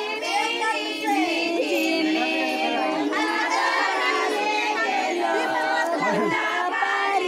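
A group of women singing together with several voices overlapping and some notes held long, mixed with children's voices and crowd chatter around them.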